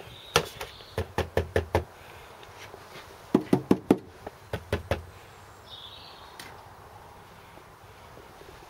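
Sharp knocks on the bare metal floor panels of a Series 3 Land Rover, in quick runs: about five in the first two seconds, four louder ones around three and a half seconds in, then a few lighter ones.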